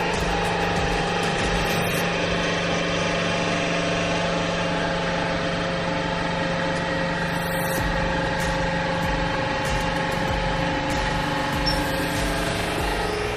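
Hydraulic press's pump motor running steadily under load, a constant hum with no breaks, while the ram holds the crushed ball.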